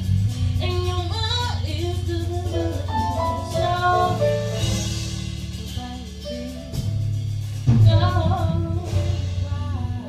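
Live jazz band: a woman sings over deep, sustained bass notes and drums, the band swelling loudest near the end.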